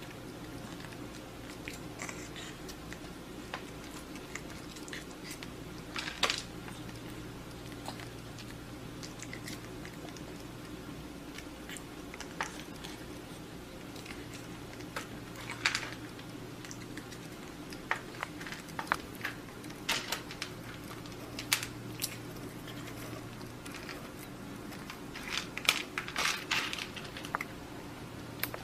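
A cat eating bits of food offered on chopsticks: scattered small clicks and crunches, busiest near the end, over a steady low room hum.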